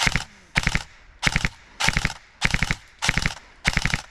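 BOLT MP5K airsoft electric gun firing short bursts on full auto: about seven quick bursts of a few shots each, spaced about 0.6 s apart.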